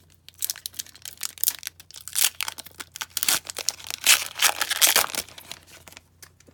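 Plastic foil wrapper of a hockey card pack being torn open and crinkled in the hands: a loud, irregular crackling that starts about half a second in and stops about a second before the end.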